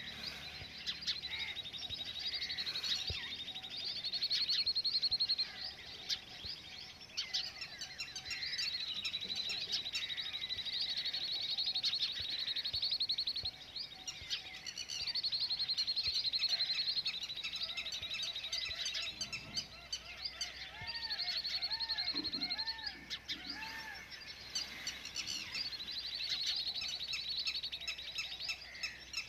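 Morning chorus of many small birds chirping and trilling over one another, with a short run of repeated rising-and-falling calls about two-thirds of the way through.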